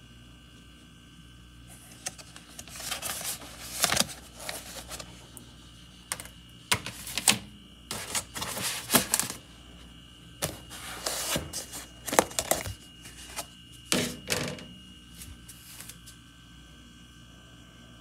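Thin plastic takeout container being handled and its clear lid unsnapped and taken off: bursts of crinkling and clicking with several sharp snaps, over a faint steady hum.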